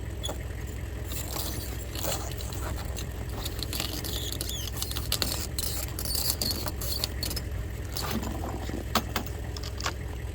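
Scattered clicks, knocks and scrapes of a frozen, stiff water hose and its fittings being handled, over a steady low engine idle. The sharpest knocks come in the second half.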